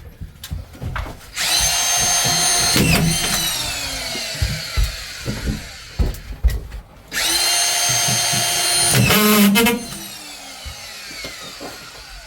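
Drywall screw gun driving screws through plasterboard into ceiling timbers: the motor whines steadily twice, for a second or two each time, and after each run its pitch falls slowly as it spins down, with a few knocks in between.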